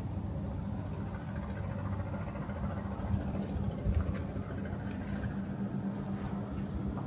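A steady low mechanical hum, like a motor or engine running, with two light knocks about three and four seconds in.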